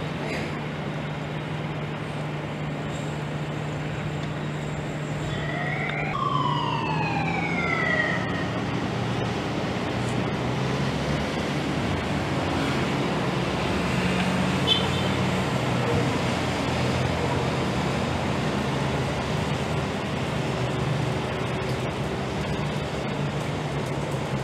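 Street traffic noise with a steady engine hum. About five seconds in, a siren sweeps up and then falls once over a couple of seconds.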